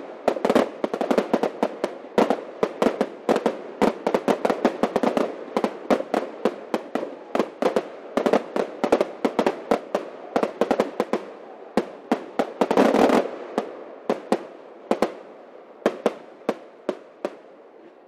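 Fireworks display: a rapid string of sharp bangs, several a second, over a continuous crackle. A louder cluster of bursts comes about thirteen seconds in, and the bangs thin out to scattered reports near the end.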